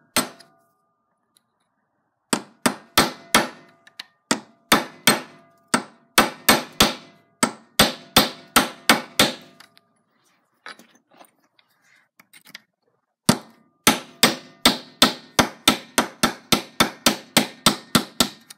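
Ball-peen hammer striking a steel pin punch to drive a tight old cross pin out of an RC car drive shaft (dog bone) held in a bench vise. Sharp metallic strikes with a slight ring come in short bursts, then after a pause of about four seconds in a steadier, faster run.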